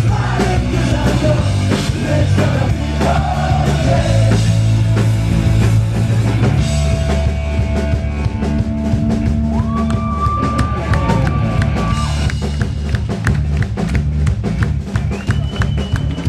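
Live rock band playing loudly: drum kit, bass and electric guitar with singing, and a long held note about two-thirds of the way through.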